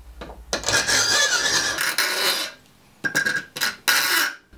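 Hand file rasping across a small steel knife blade to shape it: a long run of filing strokes in the first half, then three short strokes near the end.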